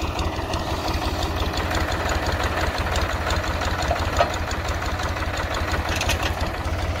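Al-Ghazi 65-horsepower diesel tractor engine idling steadily with an even low pulse, left running to warm up before pulling a loaded trolley.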